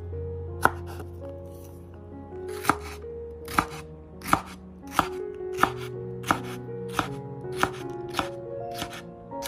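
Chef's knife slicing small sweet peppers into rings on a bamboo cutting board: about eleven crisp chops, two in the first three seconds and then about one and a half a second.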